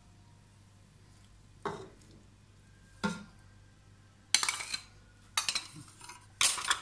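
Metal spoon and dishes clinking and knocking against a bowl and an aluminium cooking pot: a couple of single clinks, then a louder run of knocks and clatter in the second half.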